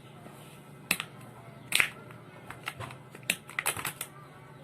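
Fruit salad container being handled and opened: sharp clicks and crackles, two single ones in the first two seconds, then a quick run of them.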